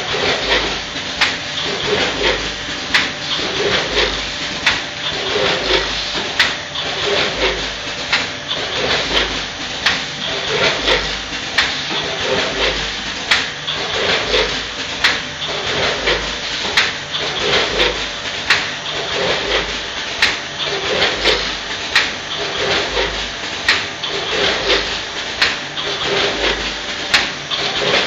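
Multihead granule weighing machine running on small monosodium glutamate granules. Its vibrating feeders buzz steadily under a constant patter of sharp clicks and clacks, and a heavier pulse repeats about once a second in a steady working cycle.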